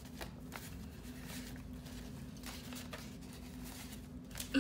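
Paper banknotes rustling and flicking as they are handled and counted out by hand, in a few faint, brief rustles, over a steady low hum.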